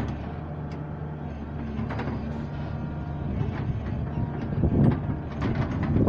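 Doosan 140W wheeled excavator's diesel engine running steadily as the machine works its bucket along a sandy slope, with scattered knocks and scraping that grow louder near the end.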